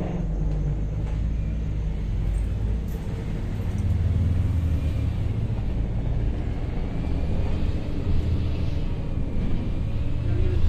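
Volvo Caio Procity city bus on the move, heard from inside: a steady low rumble of engine and road, with a faint whine wavering above it partway through.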